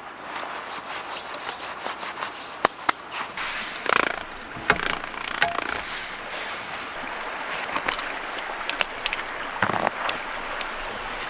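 Rustling of a nylon down jacket and tent fabric as someone moves about in a tent, with scattered sharp clicks and knocks of gear being handled.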